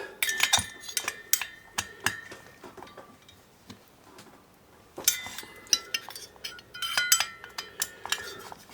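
Metal hand tools clinking and tapping against the engine's metal parts while its screws are tightened: irregular sharp clinks with brief ringing, in two bursts with a quieter gap of about two seconds between them.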